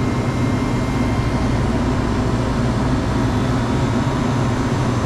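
Walk-in freezer condensing unit running, its compressor and condenser fan giving a steady low hum. The system is low on refrigerant, so the suction side is pulling down into a vacuum while it starts to take an R-404A charge.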